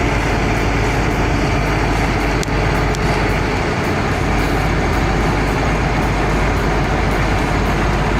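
Log skidder's engine running steadily and loudly, a dense low rumble with no break.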